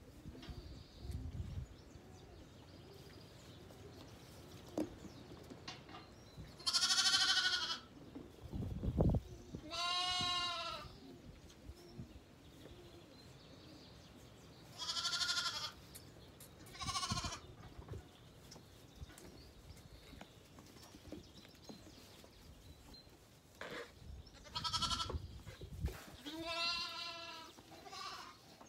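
Zwartbles lambs bleating: six high, wavering bleats in three pairs, with short quiet gaps between.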